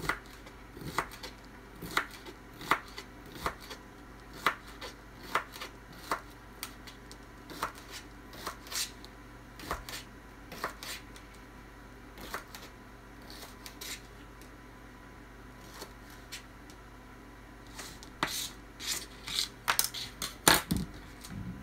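Kitchen knife, a coated ceramic prep knife, chopping celery on a thin plastic cutting mat: sharp separate taps, about one or two a second, thinning out midway. Near the end a quicker run of knocks.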